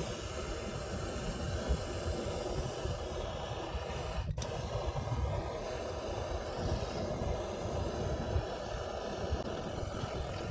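Wind buffeting the microphone: a steady rushing noise with a gusty low rumble, which drops out for an instant about four seconds in.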